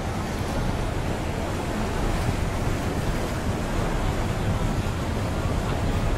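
Steady rumbling wind noise on the microphone, with no distinct events.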